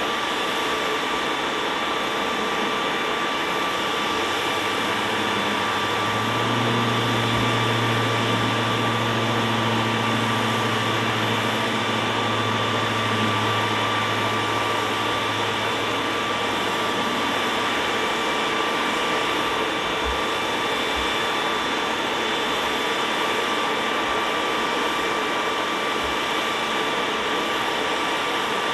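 Aircraft turbine engine running steadily: a loud, even rushing noise with a high, constant whine. A low hum joins about six seconds in and fades out by about eighteen seconds.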